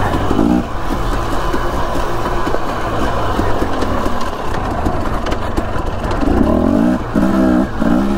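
Dirt bike engine running under throttle, its pitch rising and falling as the rider works the throttle on a steep trail section, most noticeably near the end.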